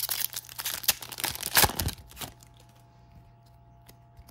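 Foil wrapper of a trading card pack being torn open, crackling and crinkling for about two seconds, then a few faint clicks.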